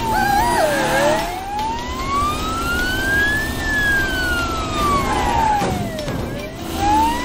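An emergency vehicle's siren wailing, its pitch sliding slowly down, then up, down and up again over a few seconds. Short squeaky chirps sound over it near the start and near the end.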